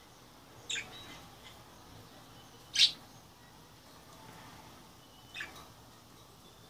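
Budgerigars giving three short, sharp chirps about two seconds apart; the middle one is the loudest.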